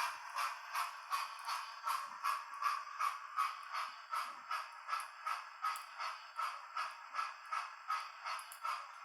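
A model train running round the layout's track, making a steady mechanical clicking at about three clicks a second.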